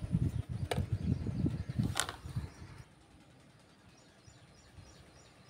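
Wind rumbling on the microphone in gusts, with two sharp clicks, about a second and two seconds in. Near the end it dies away to a faint outdoor background with small bird chirps.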